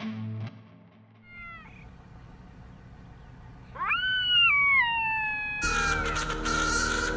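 An animal's meow-like calls: first a short falling call, then a louder, longer one that rises sharply and slides down in steps. Music starts near the end.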